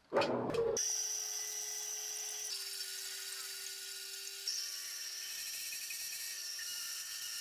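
Homemade metal lathe turning a spinning metal workpiece, the cutting tool taking a cut: a steady high whine over a steady hum, after a brief loud rush at the very start. The sound shifts slightly twice, about two and a half and four and a half seconds in.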